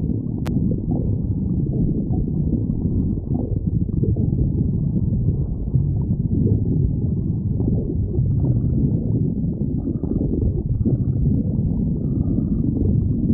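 A human stomach growling, with continuous low gurgling and rumbling that never stops. A single sharp click comes about half a second in.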